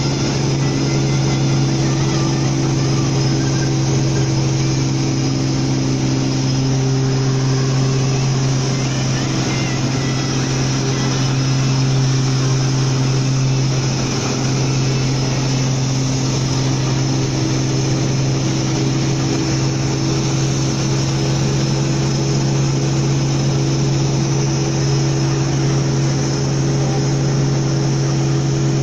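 Hino Ranger SG260Ti truck's six-cylinder turbo-diesel engine running steadily, heard from inside the cab as it pulls a loaded 40 ft container of about 26 tonnes of steel. Its drone shifts slightly in pitch now and then.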